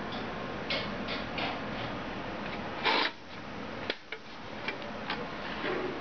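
Sheet-metal drive cage of a desktop PC case, holding a DVD drive, being handled and moved: a string of light metallic clicks and taps, with one louder clatter about three seconds in.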